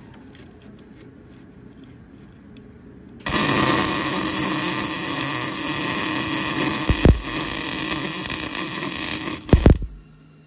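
Welder running a bead on sheet metal: a loud, steady hiss that starts abruptly about three seconds in and stops abruptly just before the end, with two brief louder bursts in the last few seconds.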